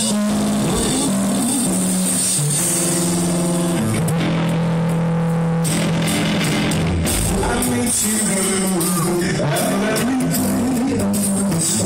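Rock music from a band: guitar and drums, with singing at times.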